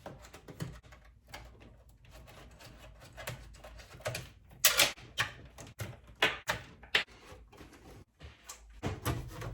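Cables and plugs being pulled out of a desktop computer: a string of irregular plastic clicks, knocks and rattles, with the sharpest clicks about halfway through.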